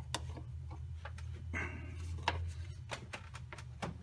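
Scattered light metal clicks and knocks, with a brief scrape about a second and a half in, as a pry bar is fitted against the serpentine belt tensioner pulley to take the tension off the belt. A steady low hum runs underneath.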